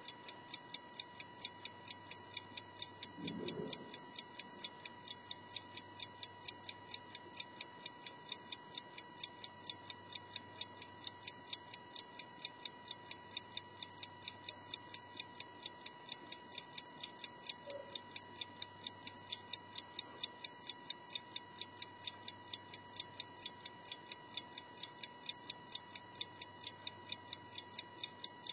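Small antique brass spring-driven clock movement, dial removed, ticking evenly and rapidly, about three ticks a second, as its escapement runs. A faint steady high tone sits underneath, and a brief low rustle comes about three seconds in.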